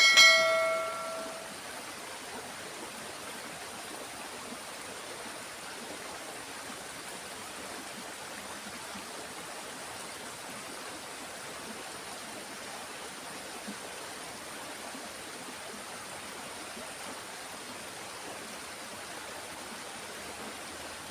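A single bell-like chime rings at the start and fades within about a second and a half, followed by a steady, even hiss of running water and light rain.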